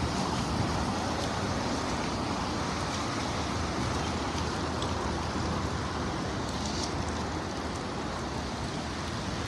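Steady rush of rain and wind, an even hiss with no breaks.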